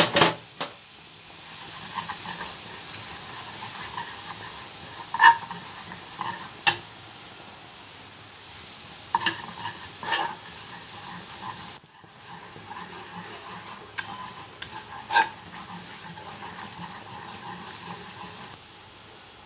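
Butter and flour sizzling in a frying pan as a metal spoon stirs them into a roux, with a steady frying hiss and now and then a sharp clink of the spoon against the pan.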